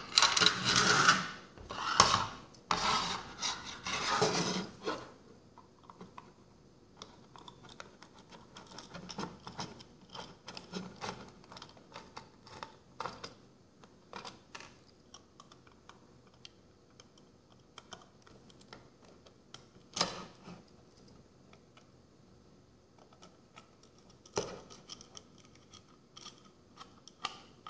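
Small screws being unscrewed from the underside of a scale model car's plastic display base: a few seconds of loud handling and scraping, then many faint small clicks and ticks of the screwdriver and screws, with a sharper knock about twenty seconds in and another near the end.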